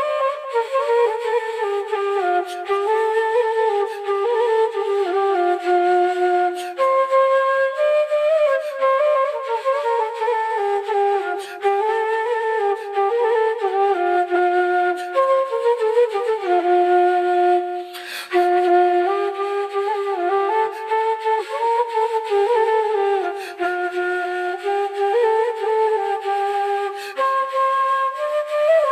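Bamboo transverse flute (bansuri) playing a solo melody in flowing phrases, with notes sliding up and down between pitches and a brief pause for breath about two-thirds of the way through.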